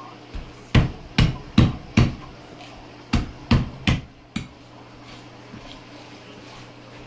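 Meat cleaver chopping into a pig's head on a plastic cutting board: about eight heavy blows in two runs of four, roughly two or three a second, with a lighter tap before and after.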